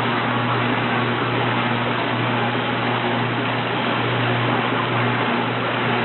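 Small electric vegetable washer running in water: a steady motor hum with a slight wobble over a continuous hiss of churning water.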